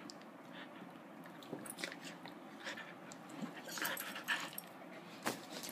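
Faint sounds of two dogs close by: scattered small clicks, crunches and mouth noises, a little busier in the last couple of seconds.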